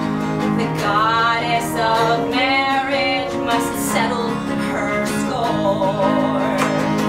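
Acoustic guitar playing chords with a woman singing over it in a live song. Past the middle she holds one note with vibrato.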